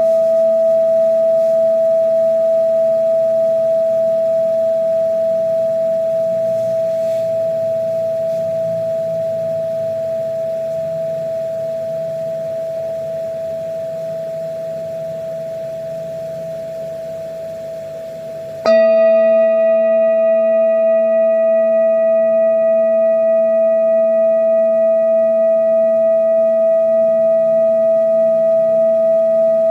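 Singing bowl ringing: one strong steady tone with a few weaker higher overtones and a slow wavering beat, fading gradually. About two-thirds of the way through it jumps suddenly back to full loudness and rings on steadily.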